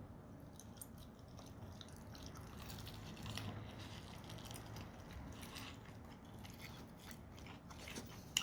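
Faint chewing and biting of food, with scattered small crunches and clicks.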